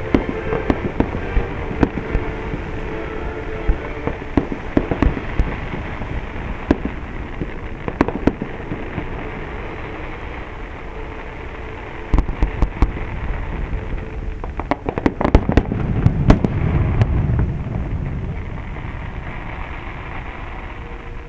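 Aerial fireworks going off: scattered sharp bangs and crackles, with a dense, heavier run of booms and low rumble about two-thirds of the way through.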